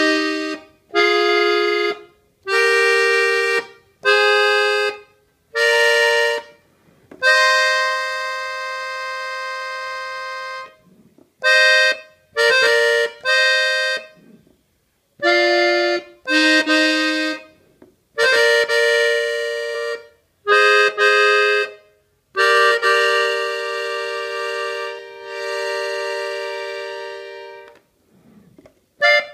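Gabbanelli button accordion in F, its right-hand treble buttons playing a slow melody in short separate phrases of double notes with brief pauses between. Two long held notes come about a third of the way in and near the end.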